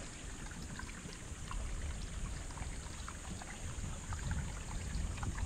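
Outdoor ambience: a steady high insect drone over a fluctuating low rumble, with scattered small crackles.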